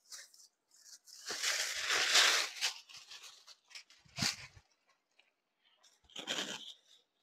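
Banarasi saree fabric rustling and swishing as it is unfolded and spread out by hand. It comes in several bursts, the longest and loudest from about one to nearly three seconds in, then two shorter ones.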